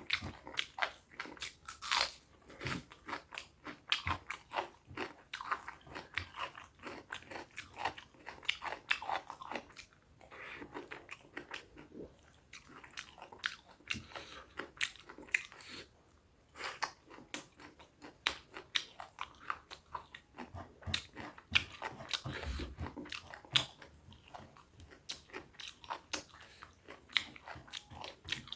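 Close-miked chewing of food: many sharp, irregular crunches mixed with softer wet chewing.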